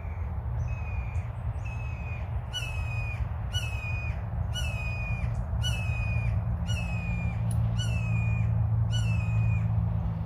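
A bird giving a series of about ten harsh, slightly falling calls, roughly one a second, growing louder after the first few, over a steady low rumble.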